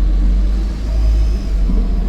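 Optare Versa bus's Mercedes-Benz OM934 5.1-litre four-cylinder diesel with Allison 2100 automatic gearbox running under way: a deep steady rumble, with a faint high turbo whine rising in about halfway through.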